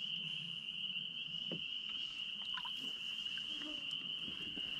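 Steady high-pitched trilling chorus of insects, unbroken, with a few faint soft knocks underneath.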